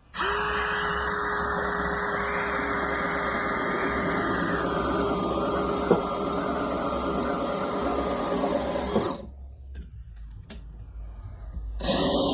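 Power drill running under load, most likely driving a 2.5 inch decking screw into wood: its pitch sinks slowly as the screw bites deeper. It stops about nine seconds in and starts again near the end.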